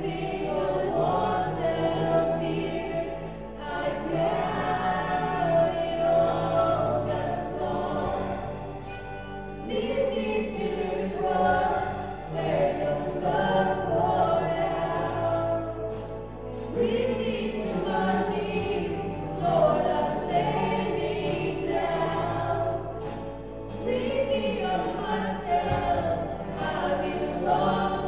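A church worship team of several singers singing together over a live band of electric guitar, keyboard and drums, performing a worship song.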